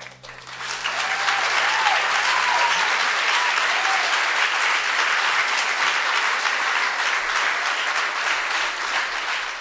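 Audience applauding at the end of a live acoustic song, the clapping swelling within the first second and then holding steady, with a few voices calling out early on. The last guitar chord rings out underneath for the first few seconds.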